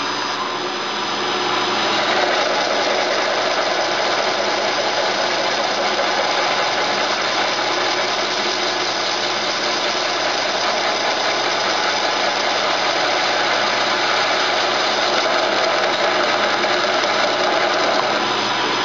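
Acer 1760 geared-head engine lathe running with its tool cutting hard Stellite (mid to high 50s Rockwell C): a steady, continuous mix of cutting noise and machine running sound with several steady tones, settling a little louder about two seconds in.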